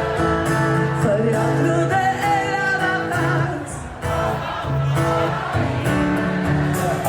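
Background music with a singing voice over held instrumental notes.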